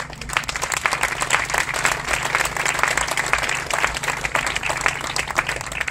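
Crowd applauding, with dense clapping that starts at once and thins out near the end.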